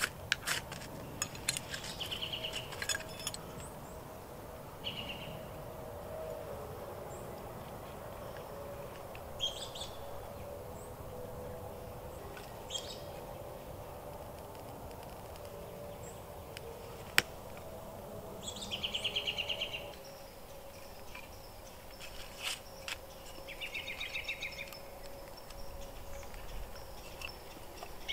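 A ferrocerium rod scraped a few quick times against a striker, throwing sparks onto cotton tinder, in the first few seconds. After that, songbirds call on and off, with a fast chirping trill about two-thirds of the way through and again at the end, and one sharp tick midway.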